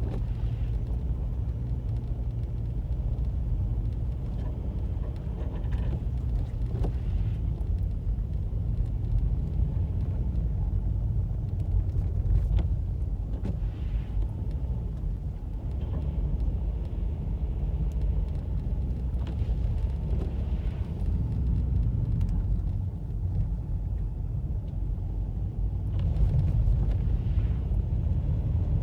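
A car climbing a snowy, icy road, heard from inside the cabin: a steady low rumble of engine and tyres, with a few faint ticks.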